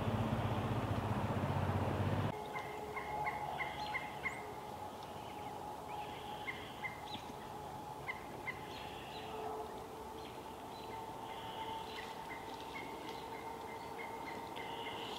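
A compact farm tractor's engine running for about the first two seconds, then cutting off abruptly. After that, birds calling with many short chirps in quick runs, over a faint steady drone.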